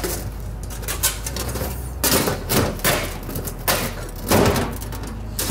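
Stamped aluminum shake shingles clicking and rattling against each other and the deck as they are slid and set into place: an irregular run of light metallic knocks, with a stronger cluster a little past the middle.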